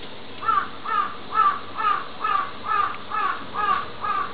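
An animal calling in a quick, even series of short rising-and-falling calls, about two a second, starting about half a second in and growing fainter toward the end.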